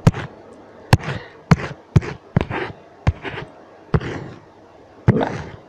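A run of about eight sharp taps or knocks, irregularly spaced, each trailing off into a brief scraping rustle.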